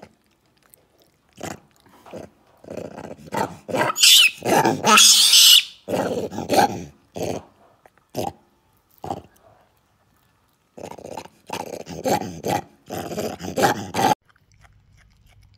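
Vervet monkey chewing and crunching carrot close up, in a run of short, irregular mouthfuls, loudest about four to five seconds in, stopping about two seconds before the end.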